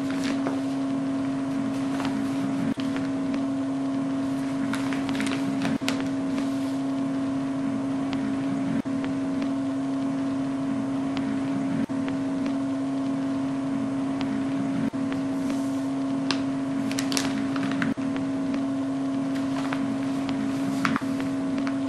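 Imitation wartime radio jamming: a steady buzzing tone over hiss with scattered static crackles, the tone dipping briefly about every three seconds.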